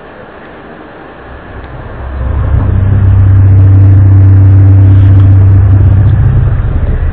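A loud, low, steady drone with overtones, swelling in over about a second and then holding one pitch: one of the unexplained trumpet-like 'strange sounds' heard from the sky. A faint steady hiss lies under it before it begins.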